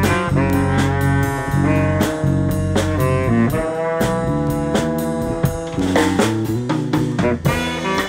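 Small jazz band playing live: a trombone holds long notes over an electric bass line, with drums and cymbal strokes keeping time.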